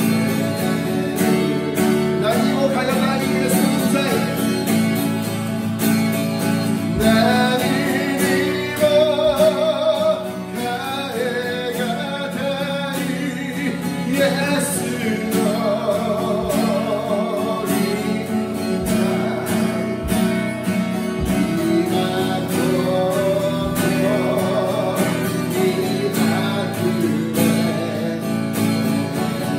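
A man singing a Japanese worship song in Japanese while strumming an acoustic guitar.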